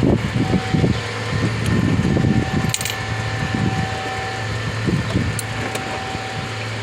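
Metal tools and parts clinking and being handled, with a sharp click about three seconds in, over a steady low hum.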